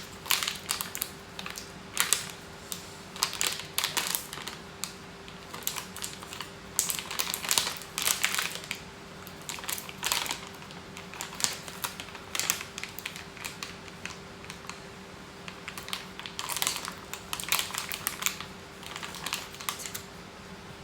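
Irregular clicks, taps and crinkling of small objects being handled, over a faint steady hum.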